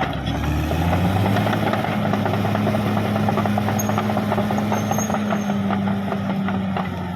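Caterpillar D6R XL bulldozer's diesel engine running steadily under a dense rattle. The engine pitch rises a little just after the start and sinks again near the end.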